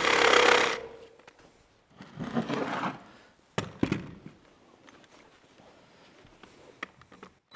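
Cordless reciprocating saw cutting into a wooden timber post, stopping within the first second. A short rasping scrape follows a couple of seconds later, then two sharp knocks as the tool and wood are handled, with little sound after.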